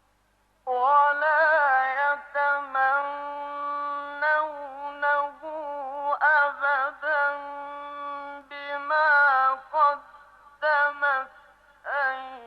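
A male Quran reciter chanting in a melodic tajweed style, dry with no added echo: after a short pause he comes in about a second in and draws out long held, ornamented notes with brief breaks between phrases.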